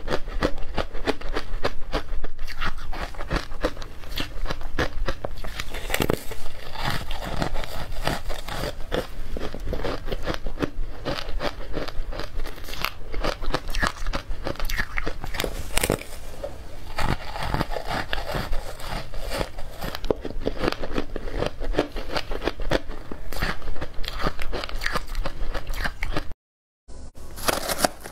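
Close-up biting and chewing of powdery ice coated in matcha powder: dense, crisp crunches one after another, broken by a brief gap of silence near the end.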